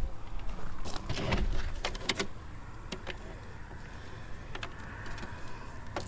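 Handling noise: a few sharp clicks and knocks as a white plastic tub is set down on gravel and a measuring tape is got ready, most of them in the first couple of seconds, then only scattered light clicks.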